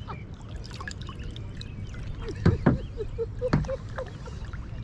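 A few knocks against a plastic kayak hull: two close together about halfway through and a third about a second later, over a low steady rumble.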